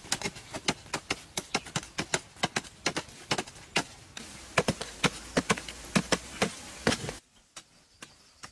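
Wooden digging sticks striking and breaking up hard, dry, stony ground, two people working at once, making a quick, uneven run of knocks and thuds. The strikes stop about seven seconds in, leaving a few faint clicks.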